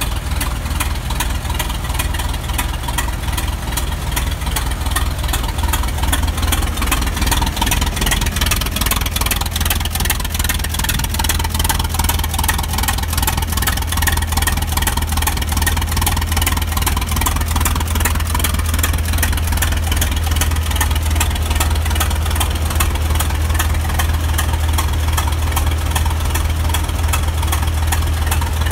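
Engine of a 1917 Fitch Four Drive 20-35 tractor idling steadily, with a strong low hum and an even, regular beat.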